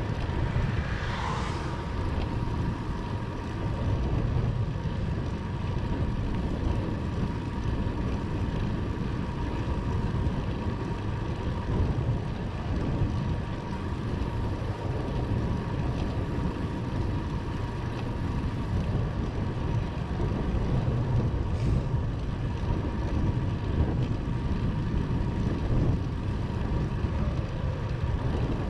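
Wind buffeting the microphone, with rolling road noise from a bicycle ride. A faint, thin steady whine sits over the low rumble.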